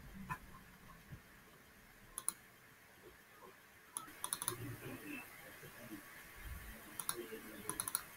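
Sharp clicks of someone working a computer: a pair about two seconds in, then quick runs of three or four clicks around four seconds and again near seven and eight seconds.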